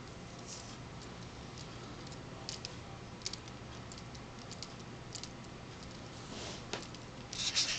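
Light plastic clicks and ticks from a Lego Technic hand model as its parts are worked by hand, scattered and irregular, with a quick cluster of louder clatter near the end. A low steady hum runs underneath.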